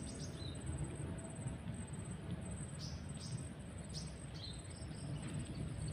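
Stream-side ambience: an insect, a cricket-like chirper, trilling in a fast, even, high-pitched pulse throughout, with a handful of short high bird chirps that drop in pitch, scattered through the middle.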